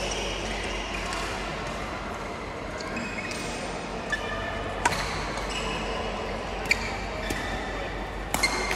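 Badminton rally: sharp racket strikes on the shuttlecock a second or two apart, the loudest about seven seconds in, with short squeaks of court shoes on the hall floor between them.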